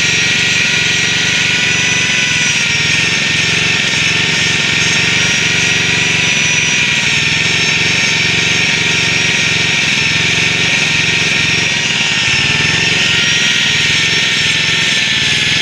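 A power tool running steadily at high speed, with a constant high whine over a hiss and a fast low pulsing.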